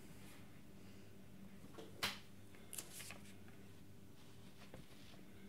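Quiet room tone with a steady low electrical hum, broken by a few faint clicks and rustles about two and three seconds in.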